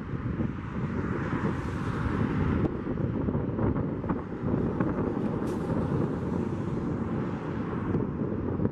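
Gusty wind buffeting the microphone, a rough, fluttering rumble and hiss, over the engine noise of a Boeing 737 on final approach.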